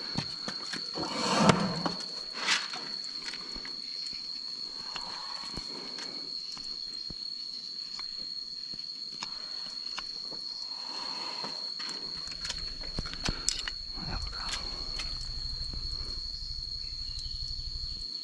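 Hoof knife cutting and scraping at the sole of an elephant's abscessed foot, with a few soft scrapes and clicks and a louder swell about a second and a half in. A steady high-pitched whine runs underneath, and a low pulsing hum comes in for the last few seconds.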